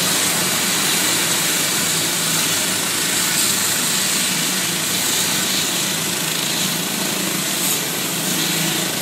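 Air-ambulance helicopter running on its landing pad, making a steady, loud turbine and rotor noise that neither rises nor falls.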